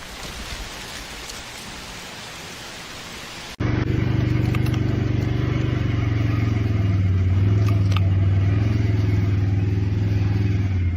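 A steady rushing noise, then after a sudden cut a loud, steady low drone of a running engine.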